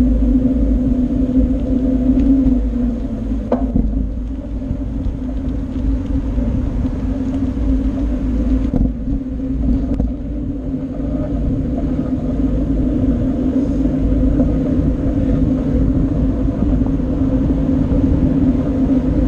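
Wind buffeting the microphone of a bike-mounted action camera, over a steady hum from the bicycle rolling along the road, with one brief click about three and a half seconds in.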